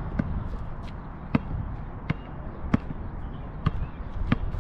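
Basketball being dribbled on an outdoor asphalt court: about six sharp bounces, unevenly spaced.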